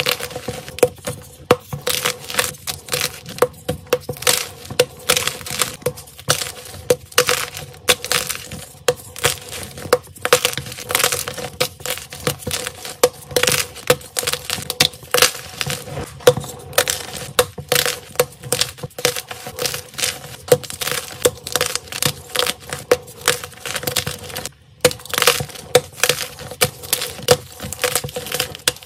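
Blocks of white gym chalk being snapped and crushed by hand: a dense run of dry crunches and sharp cracks, several a second.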